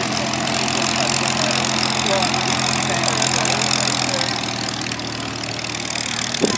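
Supermarine Spitfire's Rolls-Royce Merlin V12 engine idling steadily as the aircraft taxis, with one short knock near the end.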